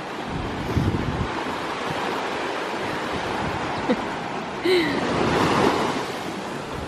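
Ocean surf washing steadily onto the beach, with wind buffeting the microphone in low rumbles about a second in. A brief, short pitched sound with a falling tone cuts in about five seconds in.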